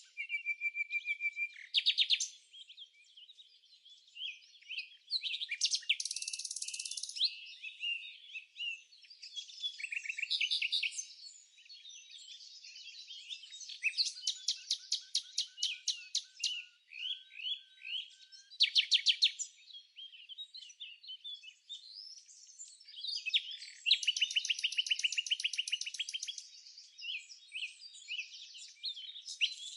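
Several songbirds singing at once: overlapping fast trills, chirps and whistled phrases that come in quick bursts, with no steady background beneath them.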